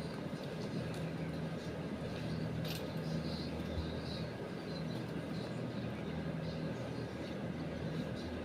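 A steady low mechanical hum over an even background noise, with a few faint clicks.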